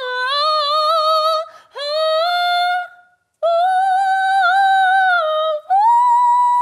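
A man singing unaccompanied in very high notes: four long held notes, each pitched higher than the one before, the last and highest starting near the end and held steady.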